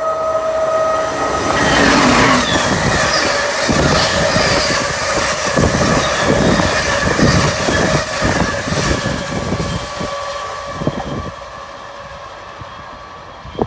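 Amtrak passenger train hauled by an ACS-64 electric locomotive passing at speed. A steady high tone in the first second gives way to loud wheel-on-rail noise with a quick run of clicks as the coaches go by, then fades as the train moves away.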